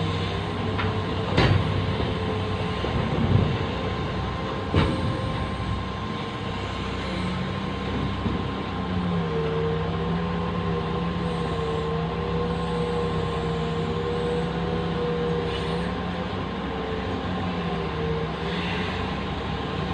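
Large excavator's diesel engine running steadily, its pitch wavering slightly, with a thin steady high tone over it. A few sharp knocks come in the first five seconds.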